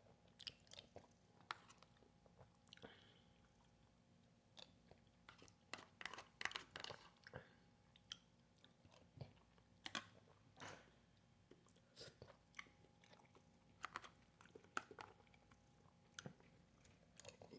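Faint mouth sounds of someone eating chili with beans, chewing with scattered, irregular soft clicks.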